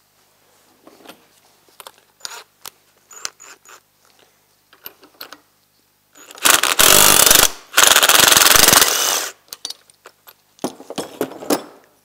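Cordless DeWalt impact gun hammering in two bursts of about a second each, driving a puller's screw to push a bearing out of a snowmobile bogie wheel. Light metal clinks from fitting the socket and puller come before and after.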